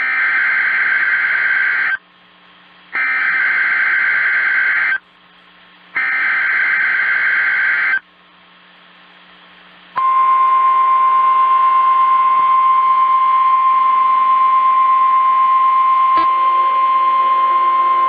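NOAA Weather Radio emergency alert: three bursts of SAME digital header data, each a harsh warbling data tone about two seconds long with a short gap between them. About ten seconds in, the steady 1050 Hz warning alarm tone starts and holds, announcing the practice tornado warning.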